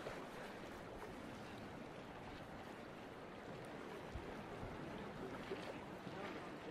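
Choppy sea washing at a harbour with wind: a steady rushing of water, with irregular low buffeting of wind on the microphone.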